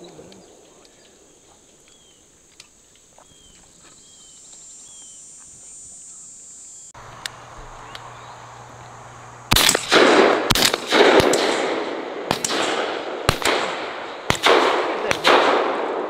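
A rapid string of shotgun shots from several shooters, about a dozen sharp reports packed into some six seconds, each trailing off in echo, starting about two-thirds of the way in. Before the shooting there is only quiet field sound with a steady high hiss and a few faint chirps.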